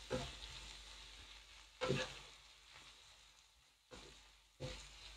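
Sliced onion and carrot frying in oil in a pan with a soft sizzle. Three short knocks or scrapes of a utensil against the pan, about two seconds apart, as spices are stirred in.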